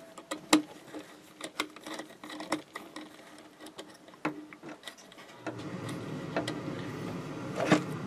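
Small plastic-and-metal clicks and taps of wires being handled and a wire terminal being fitted onto a toggle switch's terminal. About five and a half seconds in, a steady background hum starts.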